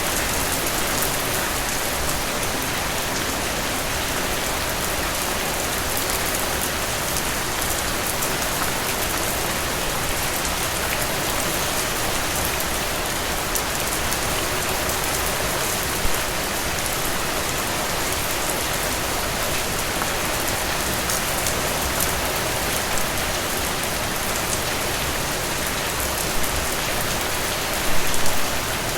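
Heavy rain falling steadily, a dense even hiss of drops with scattered sharper drop taps. A few brief louder splashes stand out, a cluster of them near the end.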